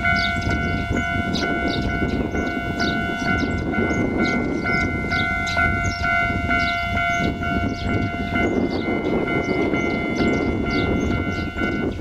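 Japanese level-crossing warning bell on the Ichibata Electric Railway ringing over and over, a bright repeated ding, sounding the warning that a train is coming and the crossing is closing.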